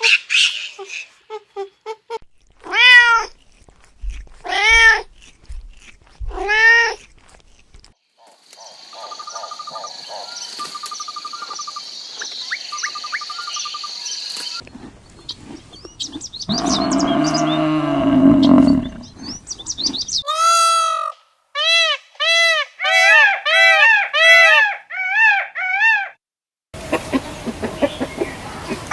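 Cats meowing: three long meows in the first seven seconds, then later a quick run of shorter meows. Between them come other animal sounds, a steady high-pitched sound and a lower call.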